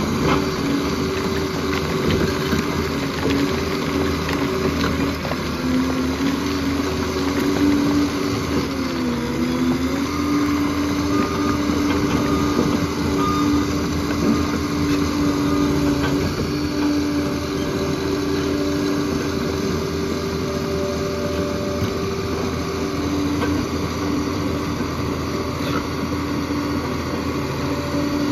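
Liebherr 746 crawler dozer's diesel engine running steadily, with a brief dip in pitch about nine seconds in before it picks back up.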